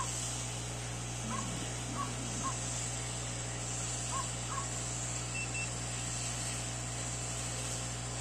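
Hot air rework station blowing a steady hiss of hot air over the memory chips of a DDR3 RAM module, reflowing the solder at the chips' corners in a last attempt to revive the dead module. A low steady hum runs under it, and a few short chirps sound now and then.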